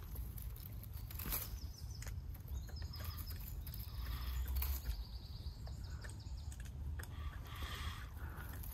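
Bilberry shrubs rustling as a hand picks berries among the leaves, with scattered small clicks over a steady low rumble.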